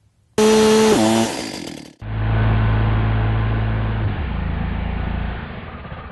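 Stihl chainsaw at full throttle cutting into chainsaw chaps; its pitch drops about a second in as the protective pad fibres bind the chain and jam the bar and sprocket. The cut is then heard again slowed down, as a deeper, duller drone that steps down and fades as the chain stops.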